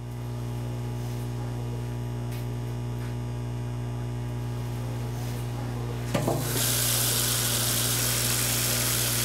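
A steady low hum, then about six seconds in a short clunk as a tap is opened, and water runs from it into a stainless steel sink over a pair of hands being washed.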